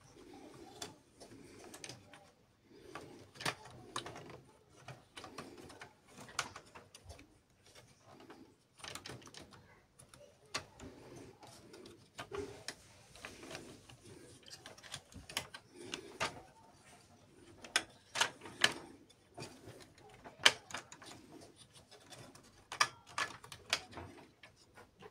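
Irregular plastic clicks and taps as gears and a thin wire spring are handled and fitted into the side gear train of a Canon i-SENSYS LBP6670dn laser printer. A few sharper snaps come in the second half.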